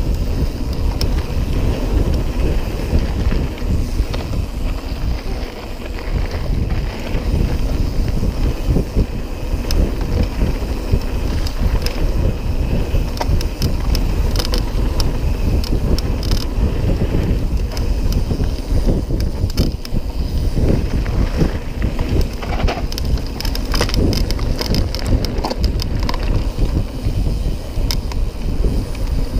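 Mountain bike riding fast downhill on a gravel trail: wind buffeting the handlebar-mounted microphone over tyres rolling on gravel, with frequent rattles and clatters from the bike.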